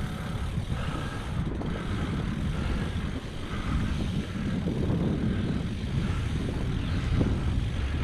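Mountain bike riding over a rutted dirt trail, heard as a steady low rumble of tyre noise and wind buffeting the action camera's microphone.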